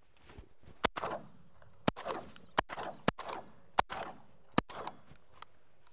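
Two hunters' shotguns firing at a passing flock of ducks: about six sharp shots spread over roughly four seconds, each trailing off in a short echo, with a faint seventh near the end.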